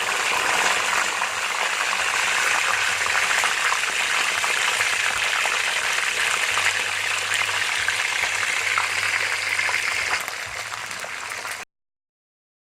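Fish frying in hot oil: a steady sizzle full of fine crackles. It eases a little near the end, then cuts off abruptly.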